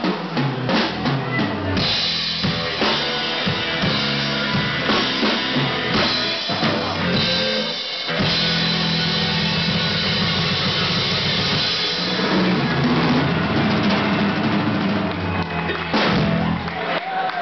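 Live blues band playing an instrumental ending: electric guitar over a drum kit with bass drum and cymbal crashes, a run of sharp hits giving way about eight seconds in to a long held chord over the drums, with a fresh hit near the end.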